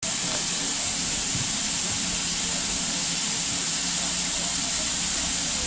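Steam hissing steadily, high-pitched and unbroken, from a GWR 56XX tank steam locomotive standing still.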